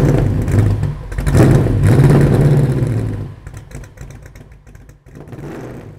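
A large engine revving loudly, swelling about a second and a half in, then dropping after about three seconds to a quieter, uneven rattling rumble that fades away.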